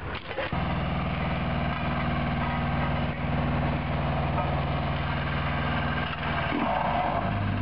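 A vehicle engine running steadily at idle. It comes in abruptly about half a second in, and its note drops lower near the end.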